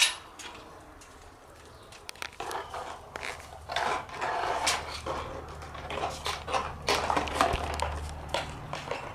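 Shiba Inu puppies scrambling about on concrete in play, with irregular clicks and scrapes. A thin plastic bottle crackles and crinkles as one puppy bites and pushes it around.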